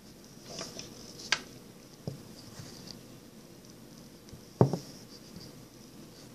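A few short knocks and clicks over a faint steady hiss, the loudest about four and a half seconds in.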